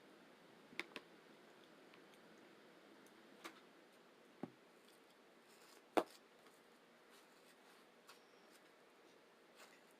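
Cutlery clicking against a plate at a breakfast of pancakes, eggs and fruit: a handful of separate sharp clicks, the loudest about six seconds in, with a quiet room between them.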